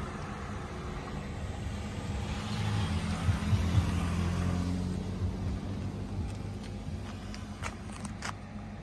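A motor vehicle passing by: a low engine hum with tyre noise swells over a few seconds in the middle and fades away. A few faint clicks near the end.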